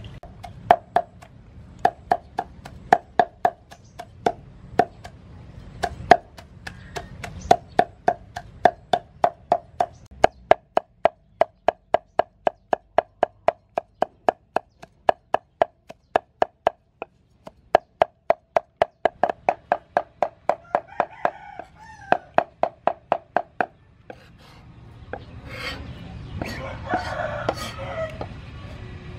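Cleaver chopping soaked dried red chillies on a thick round wooden chopping board: a long run of rapid, even chops, about three or four a second, that knock on the wood. About 24 seconds in the chopping stops, and the blade scrapes the chilli paste together on the board.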